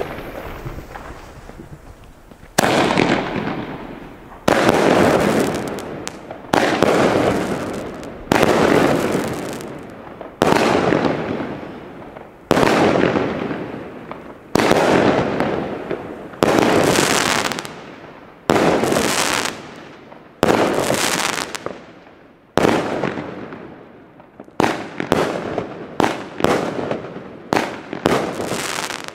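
Weco Shock Attack 35-shot firework battery firing: sharp bangs, each dying away over a second or so, about one every two seconds. Near the end the shots come faster, about two a second.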